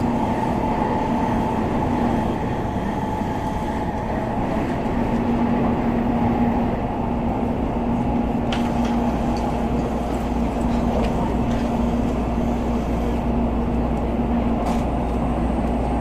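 Steady running noise inside the cabin of an N700A Tokaido Shinkansen at speed: a continuous rumble with a steady low hum, and a couple of faint clicks.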